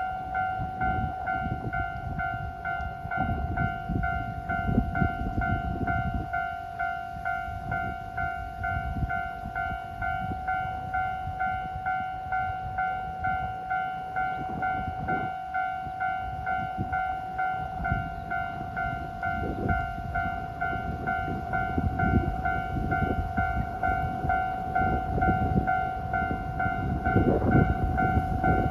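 Level-crossing alarm ringing with an evenly repeating two-tone ding, over the low rumble of a DF200 'Red Bear' diesel locomotive and its freight train rolling slowly past.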